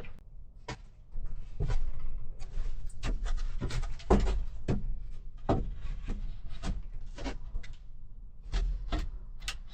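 Irregular knocks and scrapes of a wooden shelf board being worked by hand, trimmed to make room because the board has twisted.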